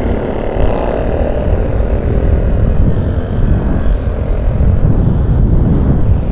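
Steady wind rumble on the microphone of a scooter rider moving along a road, mixed with the drone of the scooter's own engine and the many motorcycles and scooters ridden close alongside.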